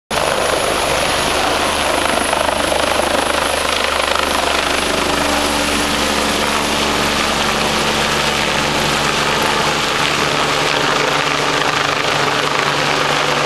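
Medical helicopter lifting off and climbing away: steady, loud rotor and turbine noise with a thin high turbine whine.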